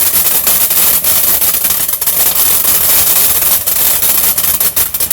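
Consumer fireworks crackling: a dense, continuous run of rapid sharp pops that stops abruptly about five seconds in.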